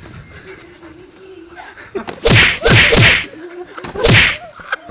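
Boxing-glove punches in a sparring exchange: loud swishing smacks about two seconds in, then a quick pair, then another just after four seconds.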